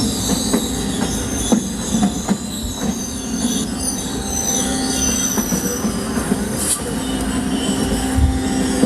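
Train running on the rails: a steady rumble with a high squeal of wheels on the rails through the first half or so, and irregular clacks.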